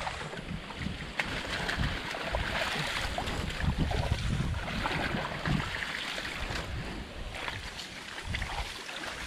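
Water splashing and sloshing irregularly as people wade through shallow water hauling a fishing drag net, with wind rumbling on the microphone.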